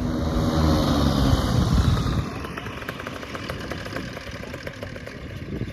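Paramotor's two-stroke engine and propeller running loud, its pitch falling steadily for about two seconds before the sound drops away abruptly, leaving a quieter steady engine noise.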